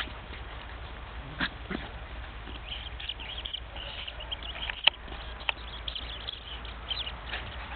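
Two puppies at play: a few short yaps and play noises, a sharp click about five seconds in, and faint high chirping in between.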